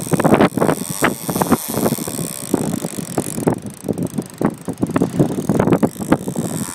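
Big-game lever-drag fishing reel being cranked against a large tuna, with quick irregular clicks and knocks, over wind on the microphone and rough water against the hull.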